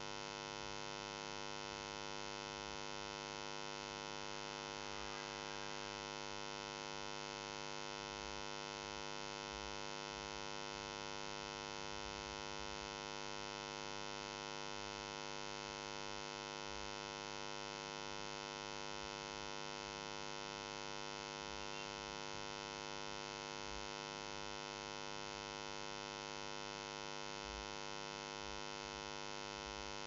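Steady electrical hum with a stack of even overtones, unchanging throughout and with no other sound over it.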